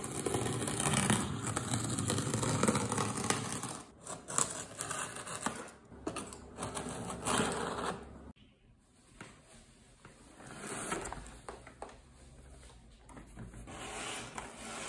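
A craft knife slitting the packing tape along a cardboard box's seam: a dense, rasping scrape with clicks. After about eight seconds it turns quieter, with cardboard flaps being opened and paper packing rustling.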